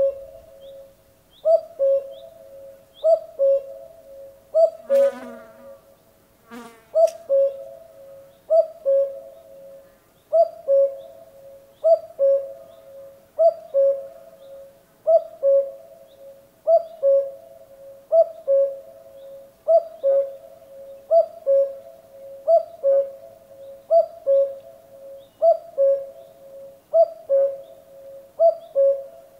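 Common cuckoo calling its two-note "cuck-oo", the second note lower than the first, repeated steadily about every second and a half. A short, harsher sound breaks in once around five to seven seconds in.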